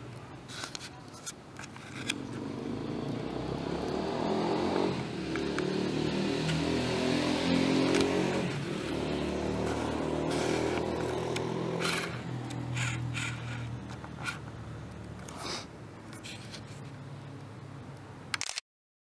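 A motor vehicle's engine passing by: it grows louder over several seconds, peaks about eight seconds in, then fades away, with scattered sharp clicks. The sound cuts off abruptly near the end.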